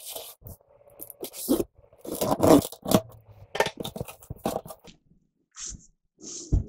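Cardboard shipping box being opened: packing tape slit with a utility knife, then the flaps scraped and folded back in a string of short scrapes and rustles. Near the end, two brief crinkles of the plastic bag around the foam-packed computer case.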